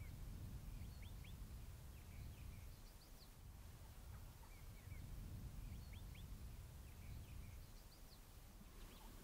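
Quiet open-field ambience: a low rumble, with faint short chirps of small birds scattered throughout, several in quick pairs.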